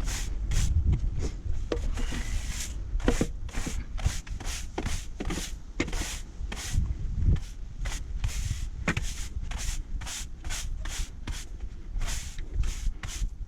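Stiff broom sweeping dry jointing sand across block paving to re-sand the joints, in brisk repeated scraping strokes, about two to three a second.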